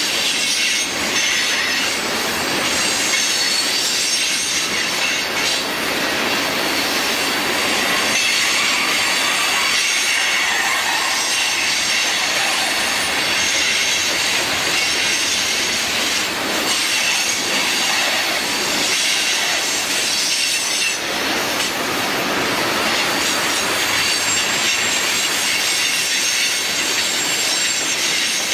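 Freight train of tank cars rolling steadily past on curved track: continuous rail and wheel noise with a thin, high, steady wheel squeal from the flanges grinding on the curve.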